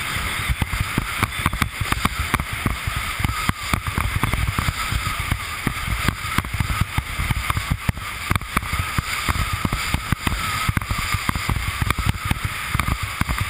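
Windsurf board (a Fanatic Falcon) planing at speed over chop: the hull slaps and rattles over the small waves while spray hisses and wind buffets the action camera's microphone, a steady rumble with a rapid, irregular clatter of knocks.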